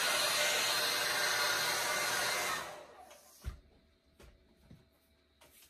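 Handheld hair dryer blowing steadily on wet acrylic paint, then switched off a little under halfway through and dying away. A few light knocks follow in the quiet.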